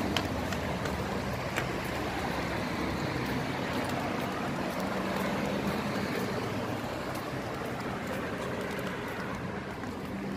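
Road traffic on a city street: a steady wash of car engines and tyres passing.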